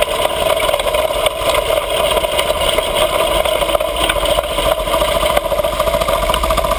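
Mini bike's small engine running steadily while being ridden, with an even, unbroken note.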